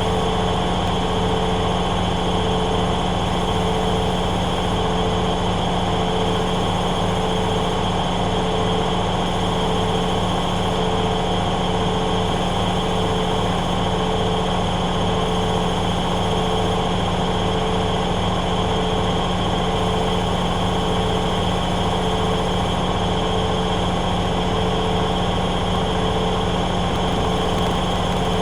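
Hoover Dynamic Next washing machine running steadily in its spin, the drum turning at high speed with a constant hum and a higher tone that swells about once a second.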